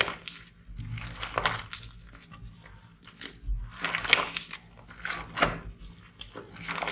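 Slime being squeezed and pressed by hand: a series of crackling, squishy bursts, one every second or so.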